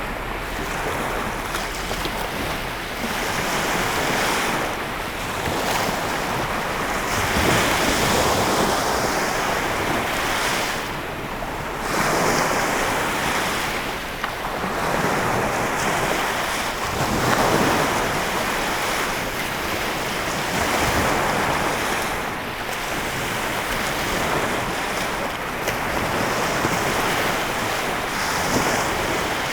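Lake Michigan waves breaking and washing on the shore in a continuous wash that swells and eases every few seconds, with wind buffeting the microphone.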